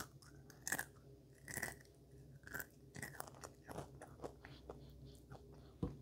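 A child chewing and biting a snack close to the microphone: faint, irregular small crunches and mouth clicks.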